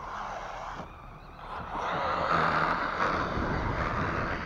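Electric radio-controlled car driving across snow: motor and drivetrain whir mixed with the tyres churning and spraying snow. It grows louder about a second and a half in as the car speeds up, and stays loud.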